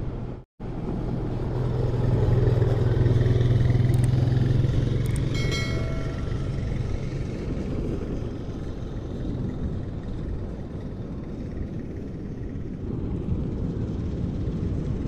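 Low engine rumble of a passing vehicle that builds over the first couple of seconds and fades again after about five. It sits over steady wind noise on the microphone and surf.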